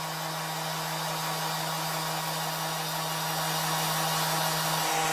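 Ryobi electric sander running steadily: an even motor whir with a steady hum that grows slightly louder. It is being run for a sound check after a six-foot drop test, where changes in tone and pitch would point to damage in the motor.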